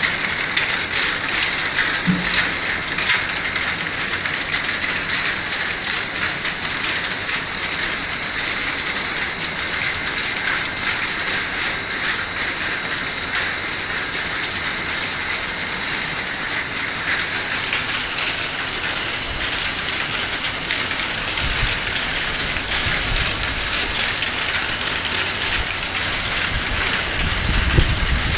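External vial washing machine for 50 ml vials running: a steady hiss of spray or air jets with rapid mechanical clicking throughout, and a low rumble joining in after about twenty seconds.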